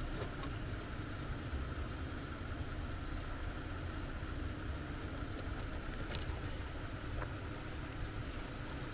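Vehicle engine idling steadily, a low even rumble, with a couple of faint clicks about six and seven seconds in.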